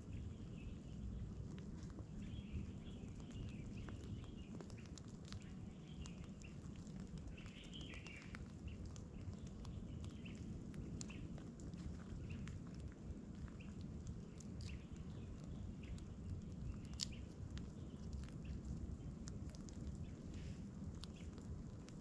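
Small wood campfire crackling with scattered clicks and snaps, over a low steady rumble. Faint bird chirps come and go, mostly in the first half.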